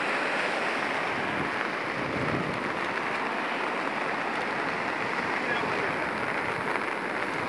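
Steady rushing noise of a fast-flowing, flood-swollen river, mixed with rain.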